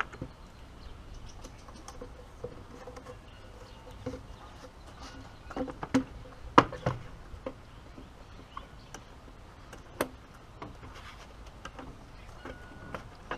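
Handling noise from fitting a plastic cold air intake tube and its coupler by hand: scattered clicks, knocks and rubbing as the tube is worked onto the throttle body. The loudest knocks come about six to seven seconds in, with one more sharp click about ten seconds in.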